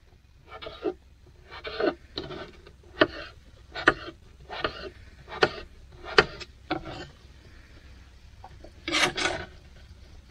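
Kitchen knife dicing raw potato on a plastic cutting board: about eight unhurried cuts, roughly one a second, each ending in a click as the blade meets the board. About nine seconds in comes one longer scrape of the knife across the board.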